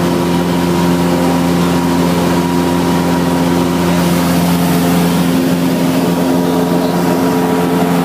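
Cessna 172's piston engine and propeller running steadily in flight, heard from inside the cockpit as a loud, even drone with several held tones; the tone shifts slightly about halfway through.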